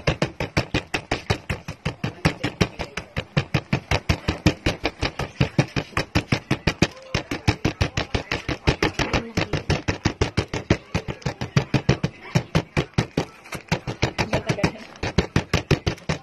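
A drinking glass pounded rapidly and repeatedly on a packet of Cream-O sandwich cookies on a table, crushing them fine: a fast, noisy knocking of about five strikes a second, with a couple of short pauses.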